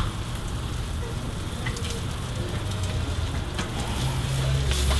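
Food sizzling on a flat-top griddle, a steady frying hiss, with a few short clicks of a metal utensil on the griddle.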